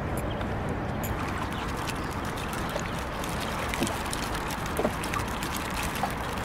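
Steady rushing of wind on the microphone and lapping river water, with a few faint clicks.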